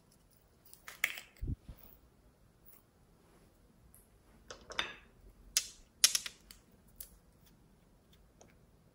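Small plastic containers and bottle caps being handled: a scattered series of clicks and rattles, loudest about six seconds in, with a dull thump about a second and a half in.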